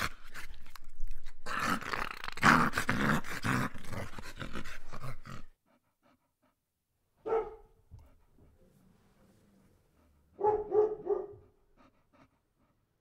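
Dog growling and barking: about five seconds of rough, continuous growling and barking, then a single bark, and three quick barks near the end.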